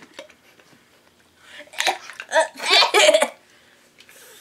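A boy's loud vocal outbursts, a cluster of gasping, laugh-like or coughing sounds starting about one and a half seconds in and lasting under two seconds, as he reacts to the taste of a black pepper jelly bean.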